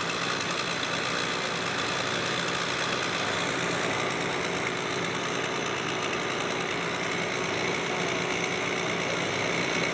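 An engine running steadily at an even speed, with a constant drone and no change in pitch.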